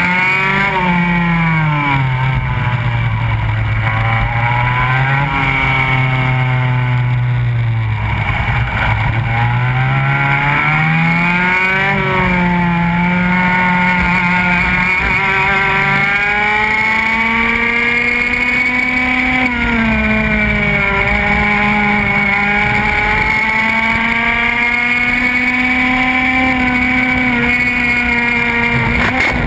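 Go-kart engine heard onboard while racing: its pitch climbs as it accelerates and drops as it slows, several times over, then holds high and fairly steady through the second half.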